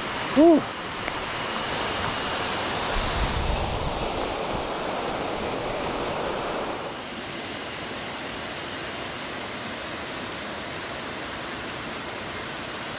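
A short grunt of effort from the cyclist about half a second in, then a steady rushing noise that eases slightly about seven seconds in.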